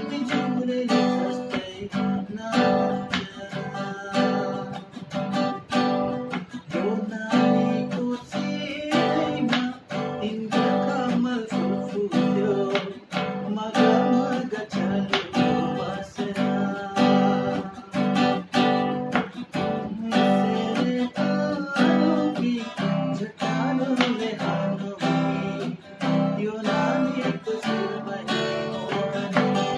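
Red electric guitar strummed in a steady rhythm of chords.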